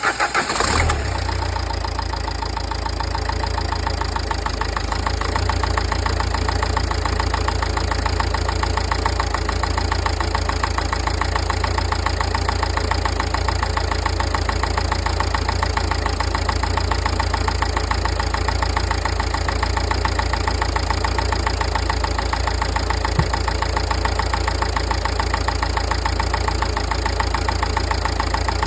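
Nissan Qashqai 1.5 dCi four-cylinder turbodiesel catching at the very start, then idling steadily with an even diesel clatter. The owner wonders whether the sound is bad and suspects the injectors or the turbo.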